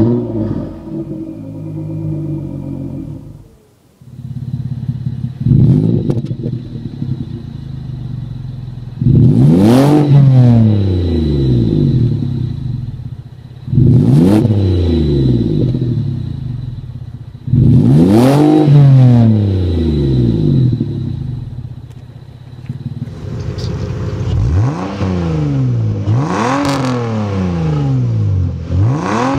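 Car exhausts recorded at the tailpipe, one after another. First a Chrysler Concorde runs steadily at idle. Then a 2009 Ford Escape's 3.0-litre V6 with a Magnaflow exhaust is free-revved four times, each rev climbing and falling back to idle. Near the end a Lexus 3.0-litre inline-six is revved three times in quicker succession.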